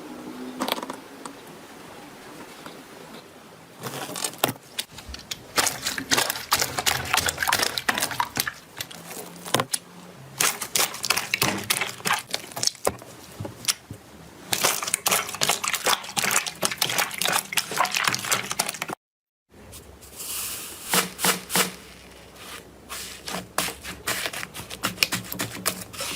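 Slime being worked by hand, making dense runs of small crackling pops and sticky clicks. It is quieter for the first few seconds, and there is a brief gap of silence about three-quarters of the way through.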